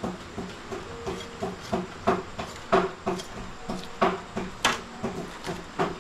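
Chicken being chopped into pieces with a knife on a cutting board, in steady blows about three a second.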